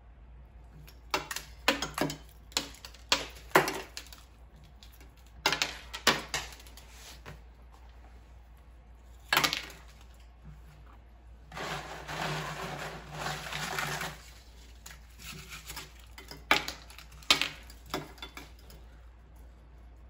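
Ice being handled against a glass flask: groups of sharp clinks and knocks, with a couple of seconds of rustling and scraping midway, as ice is pressed onto the flask's top.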